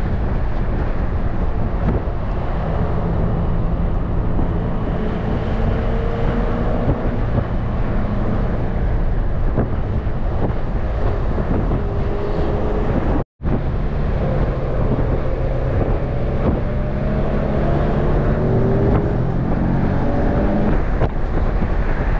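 Nissan 370Z roadster's 3.7-litre V6 running under way with the top down, heard from the cabin with wind and road noise. The engine note climbs gently a few times as the car accelerates. The sound cuts out for a split second about halfway through.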